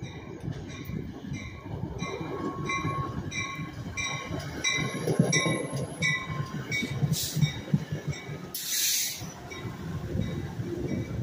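NJ Transit commuter train with a Comet V cab car leading rolls into the station with its wheels rumbling on the rails, while a bell rings about three times a second and stops about two-thirds of the way through. A brief burst of hiss comes near the end.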